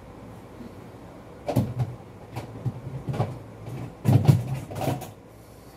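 Knocks and clatters of a kitchen cupboard being opened, shut and rummaged: a few sharp knocks starting about a second and a half in, and a louder cluster of thuds and knocks around four seconds in.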